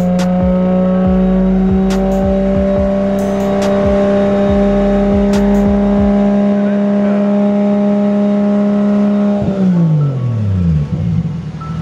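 Toyota JZX100 Mark II's turbocharged straight-six running on a hub dyno, held at a steady engine speed under load with the pitch creeping slightly upward, as in steady-state mapping. About ten seconds in the revs drop away quickly.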